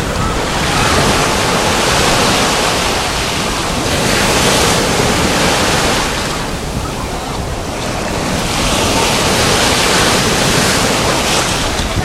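Small sea waves breaking and washing up the sand at the water's edge, a continuous rush of surf that swells, eases a little past the middle, and swells again, with wind buffeting the microphone.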